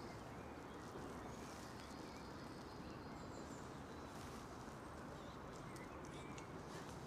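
Faint birds chirping over a steady background rush.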